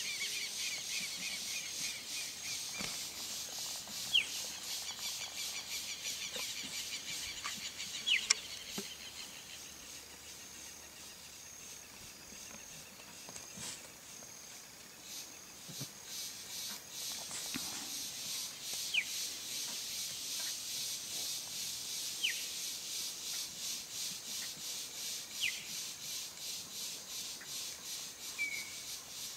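Steady, pulsing chorus of insects, with short bird chirps: a quick run of them at the start, then single chirps every few seconds.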